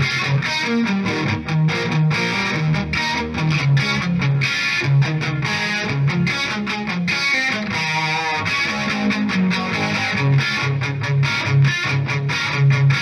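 Distorted electric guitar played through a miked Marshall 1959SLP valve amp head: a riff of short, choppy low notes with brief stops, and one held, wavering note about eight seconds in.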